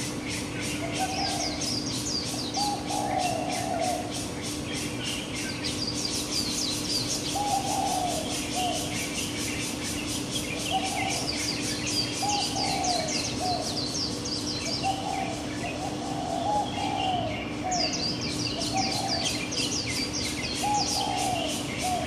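Morning birdsong: one bird repeats short low-pitched calls every second or two, while other birds give runs of high chirps over them. A steady low hum runs underneath.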